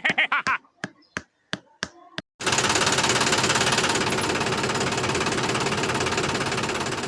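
A few separate clicks, then a small motor starts abruptly and runs steadily with a fast, even rattle.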